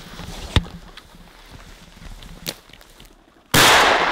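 A single shotgun shot about three and a half seconds in, very loud and fading away slowly through the forest. Earlier there is a sharp click about half a second in.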